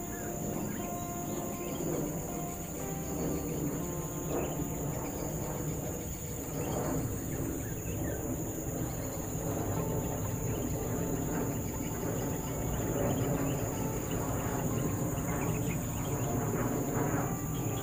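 Steady chorus of insects, a constant high-pitched drone from crickets or similar field insects in the grass.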